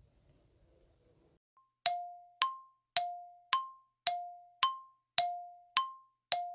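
Countdown timer sound effect: short dings that alternate between a lower and a higher pitch, about two a second, starting about two seconds in.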